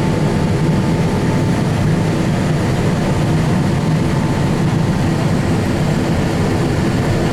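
Combine harvester running steadily while harvesting lima beans: a steady low engine drone with a faint steady whine above it.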